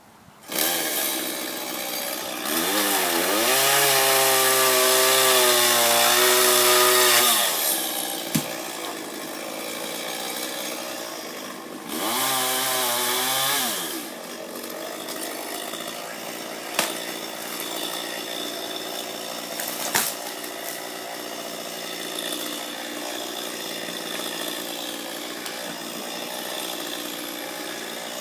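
Chainsaw starting about half a second in and revving up to full throttle for several seconds, then dropping back, revving again briefly and running at lower speed, with a few sharp knocks.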